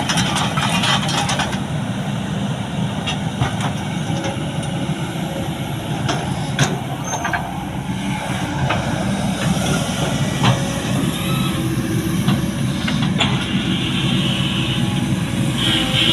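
Kobelco SK200 excavator's diesel engine running steadily under work, with occasional sharp knocks and clanks from the machine at work.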